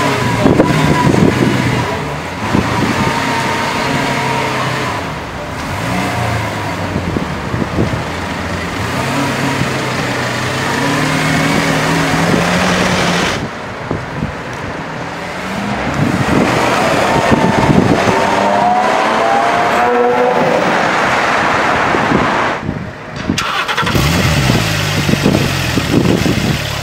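Supercar engines revving and accelerating in a run of short takes. It begins with a Lamborghini Aventador's V12 revving as it pulls away, then a car accelerating hard along the street with rising revs. Near the end a Porsche 911 Turbo's engine is blipped.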